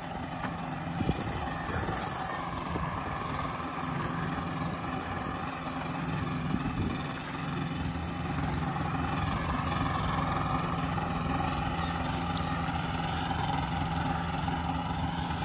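Ultralight aircraft engine running steadily at low power as the plane taxis, a steady drone that grows a little louder about two-thirds of the way through. The carburettors are set a little rich, which the onlooker blames for its rough running at idle.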